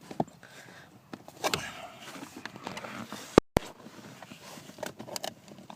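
Plastic steering column cover being unclipped and handled: scattered clicks and knocks of plastic trim, with one sharp, loud click about three and a half seconds in.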